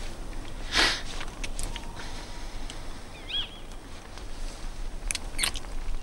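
Quiet ambience with a bird giving a short double chirp about three seconds in. A brief rustle comes just under a second in, and two soft clicks come near the end.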